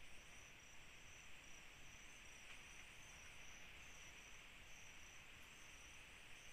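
Faint night insect chorus: crickets trilling in short, evenly repeated pulses over a steady high hiss of other insects.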